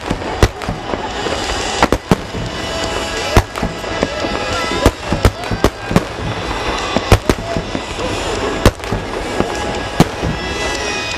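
Fireworks shells bursting in a rapid, irregular series of sharp bangs, with crackling and a steady wash of noise between them and music playing underneath.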